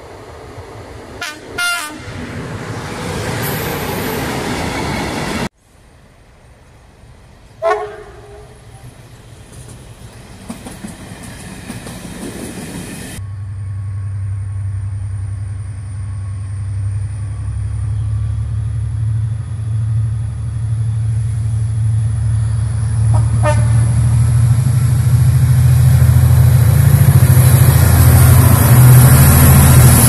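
Several train horn toots from approaching locomotives: two quick toots about a second and a half in, and a single short blast a couple of seconds later. From about halfway, a diesel locomotive's engine drones steadily and grows louder as it approaches and passes close, with one faint short toot partway.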